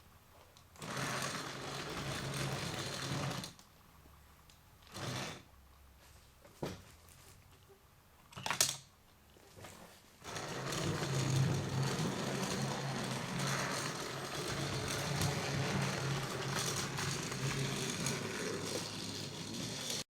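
Motorized remote-control TrackMaster Thomas toy train whirring along its plastic track, starting and stopping: a run of about two and a half seconds, a short burst, then a longer run of about eight seconds. A few sharp clicks fall between the runs.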